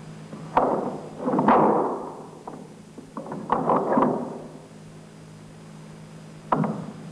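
Heavy blows on big wooden doors, several loud knocks at uneven gaps, each echoing away, over a faint steady hum.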